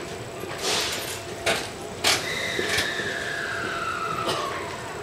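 Uncoupling of two E231 series 0-number commuter train sets: a short burst of air hiss, then several sharp mechanical clicks from the coupler gear. A whine falls steadily in pitch over about two seconds in the middle.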